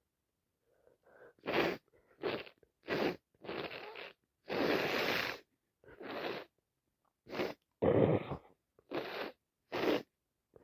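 A person with a heavy cold making a run of about ten short, noisy bursts of breath through a congested nose, starting about a second in. The longest and loudest burst comes about halfway through.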